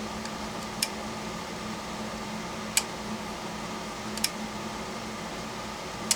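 Relays in a home-made 12-volt self-latching switch box clicking as the circuit is switched on and off: four short, sharp clicks one and a half to two seconds apart. Under them runs a steady hum.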